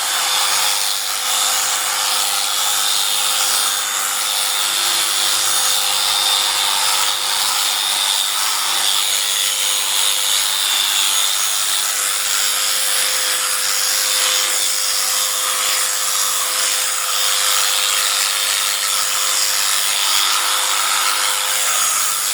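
A small motorised tool whirring steadily with a hissing, buzzing sound, unbroken throughout.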